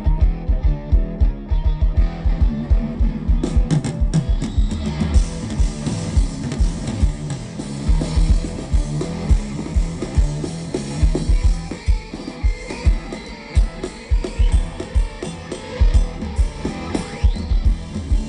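Live rock music: electric guitar over a drum kit with a steady, driving kick-drum beat.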